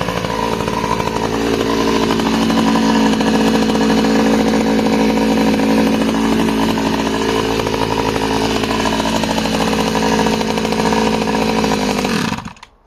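Stihl 009 two-stroke top-handle chainsaw running at high revs, its pitch dipping and recovering a few times as it works through timber. The engine sound cuts off abruptly near the end.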